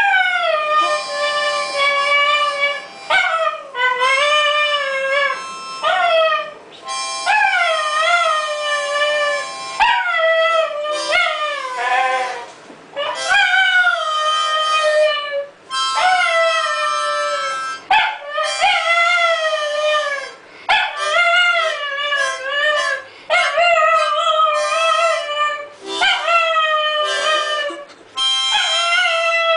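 Parson Russell terrier howling along to a harmonica, in a long run of separate howls that each rise briefly and then fall in pitch, with short pauses between them. Under the howls the harmonica holds steady chords.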